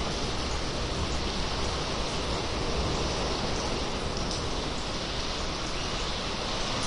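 Sea cave ambience: a steady rush of moving seawater echoing off the cave walls, with a few faint drips.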